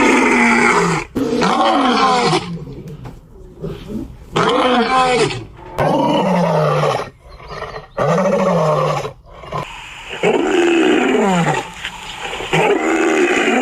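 Lions roaring: a run of loud calls, each about a second long and falling in pitch, with short pauses between them.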